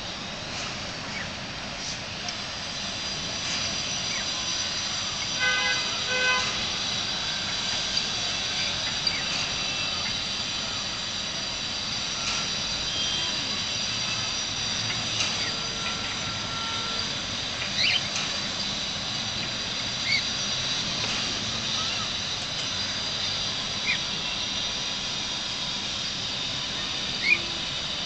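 Cockatiels giving short rising chirps, about half a dozen of them spread over the second half, the loudest near the end. Behind them runs a steady high-pitched whine.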